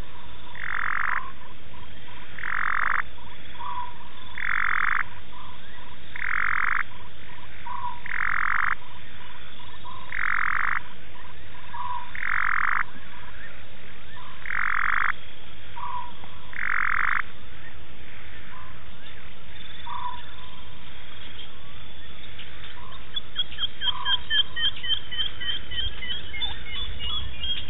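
Frogs calling at night. One frog gives a short, harsh call about every two seconds, nine times, and then stops, while short lower notes sound between the calls. Near the end, a quick run of high rising chirps starts up.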